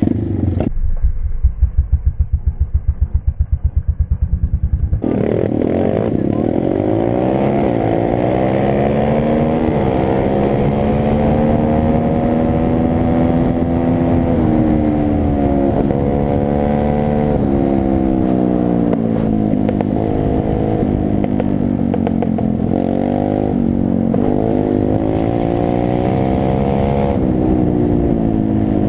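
Pit bike engine ridden hard: a muffled, pulsing low note for the first few seconds, then revs rising and falling repeatedly as it accelerates and shifts through the gears.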